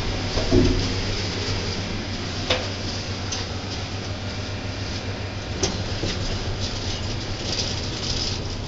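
Schindler elevator car travelling in its shaft: a steady low hum and rumble, with a couple of short clicks.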